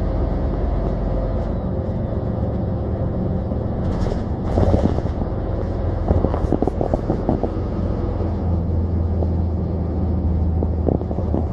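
City bus driving along, heard from inside the passenger cabin: a steady low engine and road drone. Scattered clicks and knocks from the bus body start about four seconds in.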